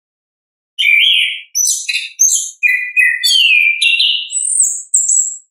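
Chestnut-capped thrush (anis kembang) singing full song: a rapid string of varied whistles, chatters and gliding notes that starts about a second in, with short breaks between phrases.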